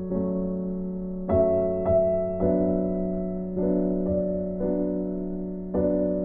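Slow background piano music: soft chords struck about once a second and left to ring.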